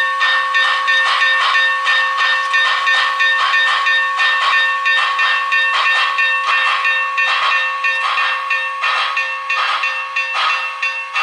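Steam exhaust chuffs from the DCS sound system of an MTH HO-scale Union Pacific Big Boy model, about two a second, spacing out and getting a little quieter toward the end, over steady ringing tones.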